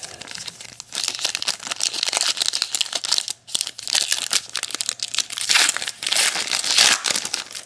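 Wrapper of a football trading-card pack crinkling and tearing as it is opened by hand, with a brief pause about three and a half seconds in.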